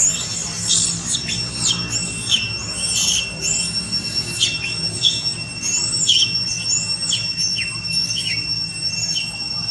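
Baby long-tailed macaque crying loudly in a rapid series of short, high-pitched squealing cries, each rising and falling in pitch, about one and a half a second, in distress after being hit.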